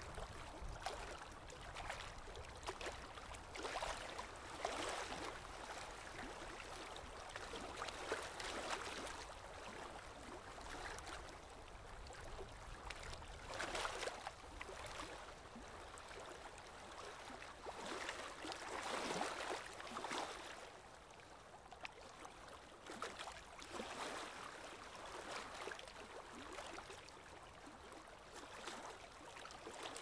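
Lake water lapping at the shore, swelling in irregular surges every few seconds over a steady low rumble.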